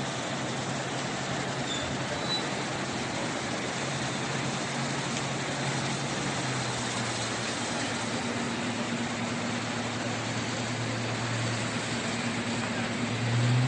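Steady rush of fast-flowing floodwater, with the low hum of a running vehicle engine fading out and back in a few times.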